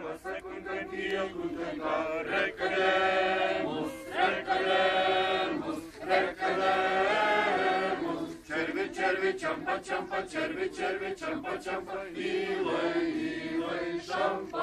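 A group of men and women singing a song together without instruments, in held, sustained notes.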